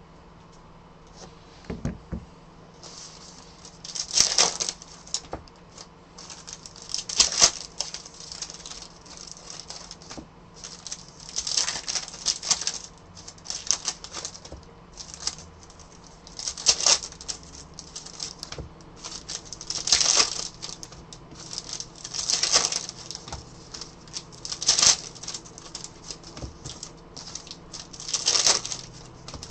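Foil trading-card pack wrappers being torn open and crinkled by hand: a burst of crinkling every two to three seconds. There is a soft knock about two seconds in.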